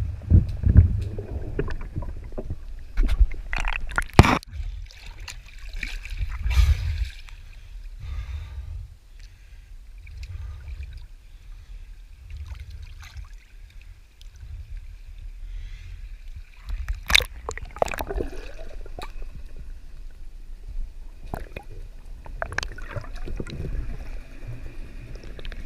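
Water sloshing and gurgling against a small boat's hull, with wind rumbling on the microphone and a few sharp knocks, one about four seconds in and a louder one near the middle.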